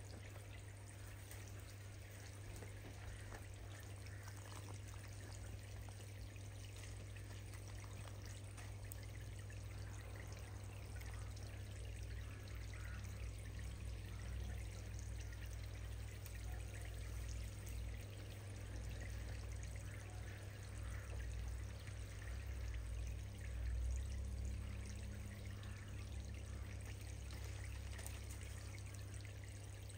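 Steady trickle and splash of water running into a garden koi pond, with a low steady hum underneath.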